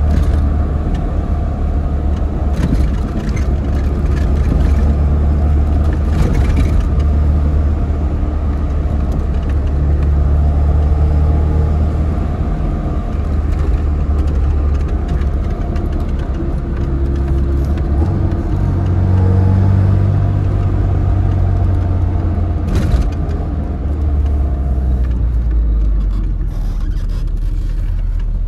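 Tofaş Şahin car's engine running through an aftermarket exhaust as the car is driven, a steady low drone whose pitch shifts about two-thirds of the way through, with a few brief sharp cracks.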